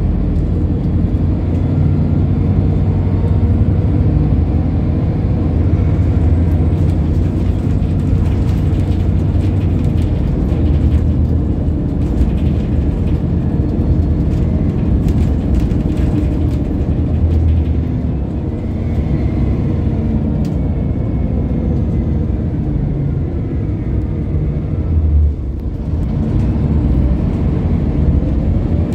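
Scania L94UB bus's rear-mounted engine and drivetrain running as the bus drives, heard from inside the passenger cabin: a steady low drone that eases off briefly about three-quarters of the way through.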